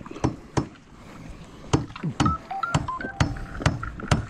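Irregular hard knocks on wood, about two a second, with a few short, high whistled notes in the middle.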